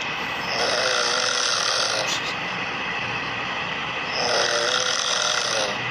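Recorded human snoring played back from a video: two long snores about four seconds apart, each a noisy breath with a buzzing tone in it. The snoring sounds like two people snoring together.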